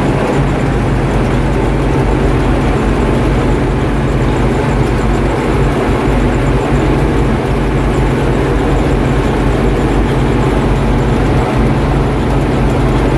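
Oliver 7600 combine running steadily, its engine and machinery making a loud, unchanging noise.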